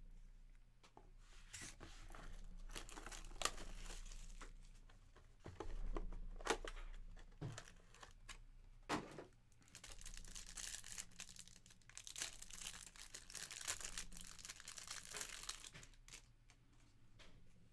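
Trading card packaging being torn open and crinkled by hand, in several rustling stretches broken by light clicks and taps from card handling.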